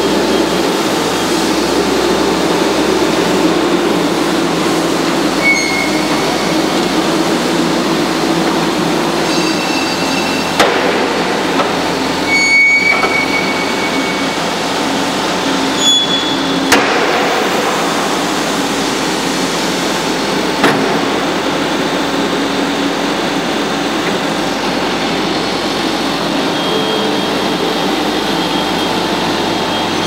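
Forway WS65 skid steer loader's engine running steadily as the machine drives about and works its bucket. A few short high squeals come through now and then, and three sharp knocks stand out in the second half.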